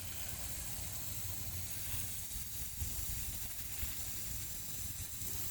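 Steady background hiss with an irregular low rumble, like wind buffeting the microphone outdoors.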